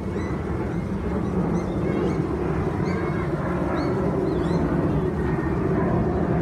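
A steady low rumble of outdoor noise, with a few short, high bird chirps over it in the first part.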